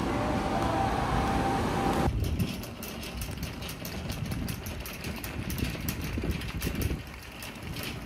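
Wire shopping cart being pushed, its metal basket rattling with many quick irregular clicks as it rolls. Before that, for about the first two seconds, a steady noisy background with a faint held tone, which cuts off suddenly.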